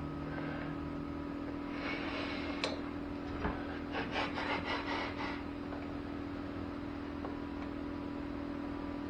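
Hand scraping with a small metal tool on a small part: a rasping stretch about two seconds in, then a quick run of about six short strokes near the middle, over a steady low hum.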